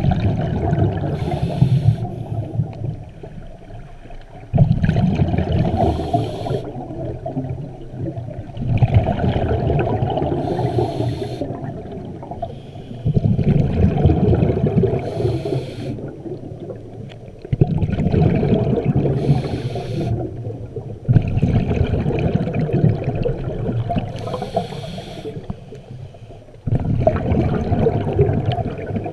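A scuba diver breathing through a regulator, about seven breaths roughly four seconds apart: each exhale is a loud rush of bubbles that starts suddenly and fades, and each inhale is a short hiss.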